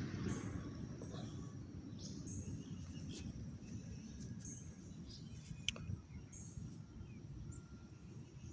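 Birds chirping, short high calls repeating every second or so, over a steady low rumble, with a sharp click a little past halfway.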